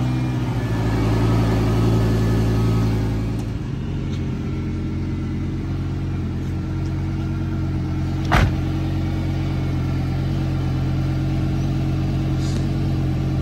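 Lamborghini Gallardo V10 idling steadily, its idle settling a little lower about four seconds in. A car door shuts once just past eight seconds in.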